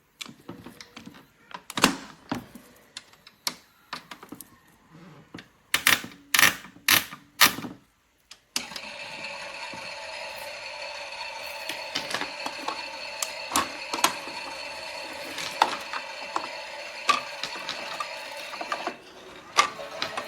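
Theo Klein 6941 toy Miele washing machine: a run of separate plastic clicks and knocks as it is handled, then, after a short break about eight and a half seconds in, its drum motor starts and runs with a steady mechanical whir and scattered rattling clicks.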